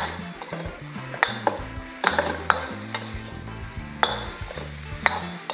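Metal ladle stirring and scraping food around a seasoned wok over high heat, with a steady sizzle of frying egg, chicken, shrimp and meatballs. The ladle knocks sharply against the wok about six times.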